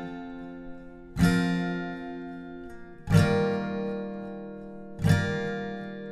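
Acoustic guitar strummed slowly: three chords about two seconds apart, each left to ring out and fade before the next.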